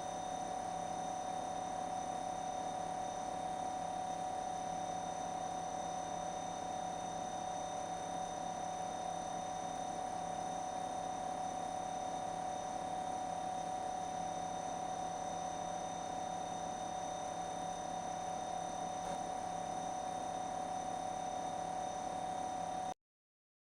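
Sharp refrigerator compressor running, the ordinary sound heard while the fridge operates: a steady hum with a clear mid-pitched tone and a fainter high whine. It cuts off suddenly near the end.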